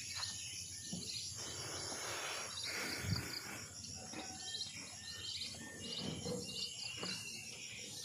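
Insects chirping in short, high, repeating pulses over faint rustling, with a soft low thump about three seconds in.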